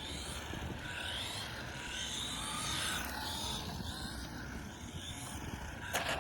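Electric motor and drivetrain of a 1/14-scale Team Associated Reflex 14R Hoonicorn RC car whining up and down in pitch as it speeds up and slows down around a course. A sharp click sounds near the end.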